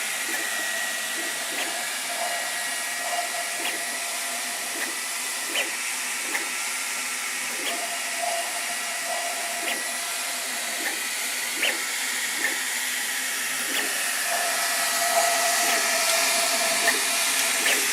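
Sovol SV08 3D printer running: a steady fan whir, with a thin motor tone that comes and goes and light ticks at irregular intervals.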